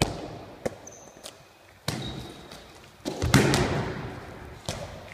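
Handballs thudding on the floor and walls of a large sports hall, each hit ringing in the echo. There are about six sharp impacts, and the loudest comes about three seconds in.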